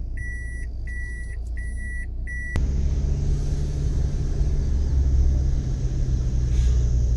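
Car's reverse-gear warning beeps, a high beep about twice a second over the low engine hum. About two and a half seconds in they stop, and the car drives forward with a steady low engine and road rumble.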